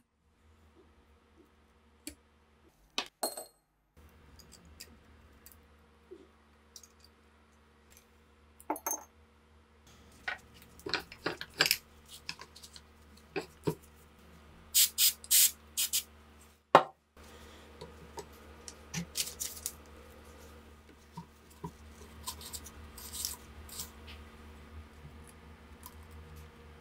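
Rusty steel gun parts being handled and worked in a bench vise, with small metal clicks and clinks and a screwdriver scraping at a coil spring. The clinks come irregularly, thickest in the middle, with one sharp metallic knock a little past halfway, over a faint steady hum.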